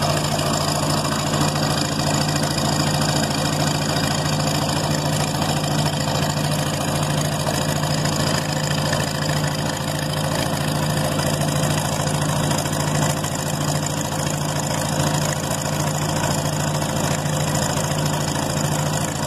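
International Cub 154 Lo-Boy tractor's four-cylinder flathead engine running steadily, freshly rebuilt with new piston rings.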